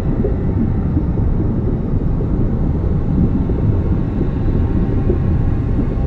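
Steady, muffled low rumble of water noise picked up underwater by the camera in its housing, with no distinct events.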